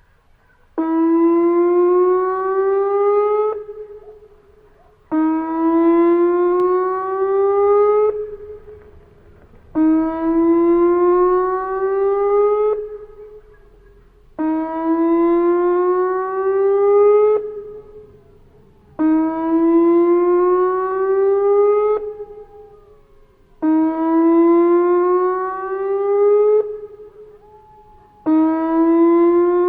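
Whelen 2810 electronic outdoor warning siren sounding its whoop tone: seven rising whoops about every four and a half seconds, each about three seconds long. Each whoop cuts off sharply and leaves a brief echo.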